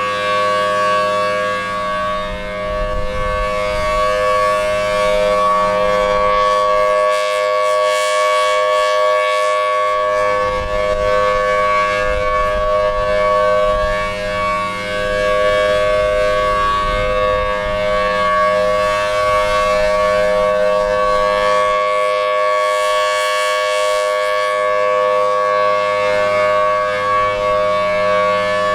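Federal Signal Thunderbolt 1000T rotating outdoor warning siren sounding the Full Alert steady tone, a loud sustained chord that holds its pitch. The sound grows brighter about eight seconds in and again near the end as the rotating horn sweeps past.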